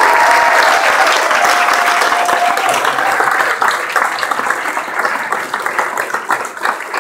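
Audience applauding, dying away into scattered single claps toward the end.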